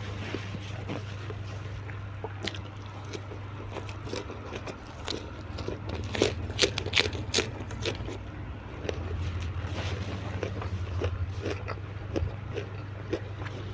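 Close-miked eating: crunchy bites and chewing, with a cluster of loud sharp crunches about six to seven seconds in, over a steady low hum.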